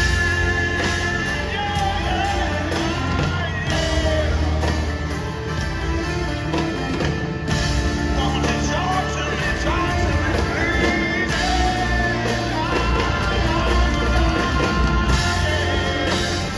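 Live rock band playing with a lead vocal over it, recorded from the audience; loud and steady throughout.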